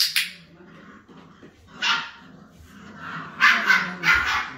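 Flat-coated retriever puppy, about four and a half weeks old, barking in a string of short, high yips: one at the start, one about two seconds in, then several in quick succession near the end.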